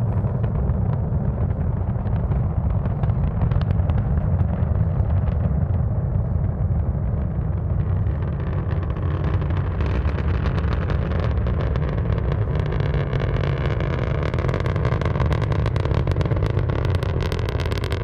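Falcon 9 v1.1 rocket's nine Merlin 1D first-stage engines on ascent, heard from about 3 miles away: a loud, steady, deep rumble laced with crackling, the crackle growing sharper and stronger from about halfway through.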